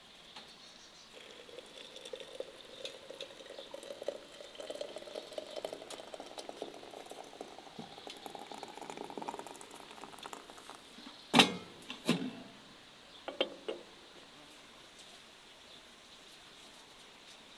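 Water poured in a stream into a ceramic teapot, its pitch rising steadily for about ten seconds as the pot fills. Then two sharp knocks and, a moment later, two lighter ones.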